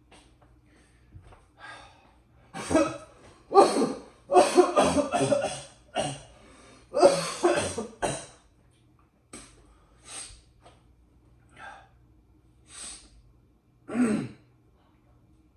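A person's loud breathy vocal bursts, like coughing or gasping: a close cluster in the first half, then a few fainter short ones, and one more strong burst near the end. A faint low hum runs underneath.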